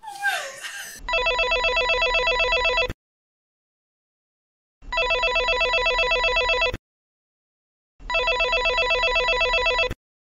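Telephone ringing: three warbling rings of about two seconds each, separated by dead silence, after a short voice trailing off at the start.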